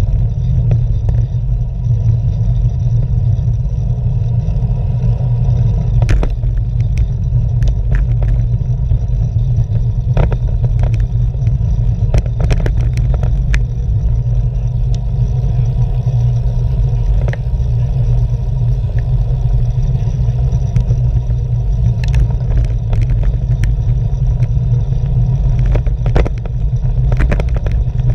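Steady low rumble of wind and road vibration on a bicycle-mounted action camera while riding, with scattered sharp clicks and knocks.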